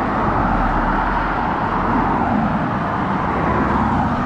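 Road traffic: cars driving past at speed on the road alongside, a steady rush of tyre and engine noise.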